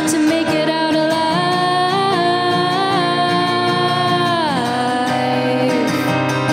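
A woman singing live over a strummed acoustic guitar. She holds one long note, then slides down to a lower note about four and a half seconds in, while the strumming keeps on underneath.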